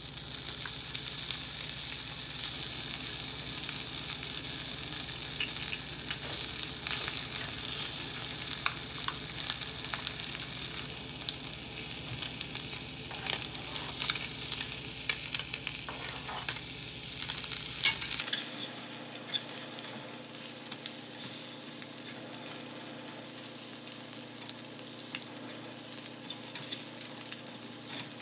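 Shredded chicken sizzling in oil in a stainless-steel frying pan, with steady crackling and the clicks and scrapes of chopsticks stirring it in the pan.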